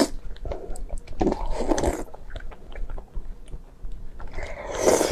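A person biting and chewing greasy, fatty food close to the microphone, in three bouts with small clicks between them.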